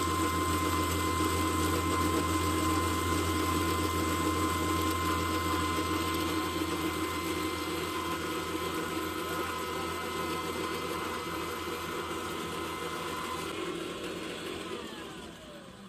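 BT-300 300-tooth disc grinder running steadily while crushing corn, a loud hum with a steady whine over grinding noise. Near the end its pitch falls and the sound fades as the machine winds down.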